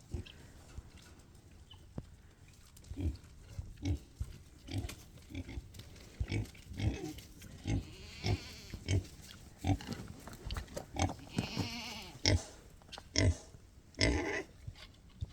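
A pig grunting in short, low grunts, one or two a second, with a couple of brief hissing snorts between them.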